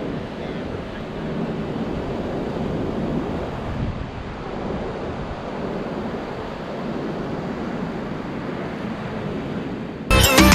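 Sea surf washing steadily on a beach, with wind on the microphone. Music comes in abruptly near the end.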